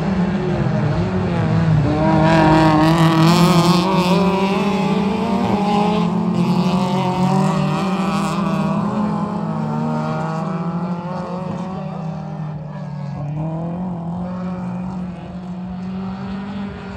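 Small-engined rallycross cars racing flat out, their engine notes rising and falling as they rev and shift. The sound swells about two seconds in and slowly fades toward the end.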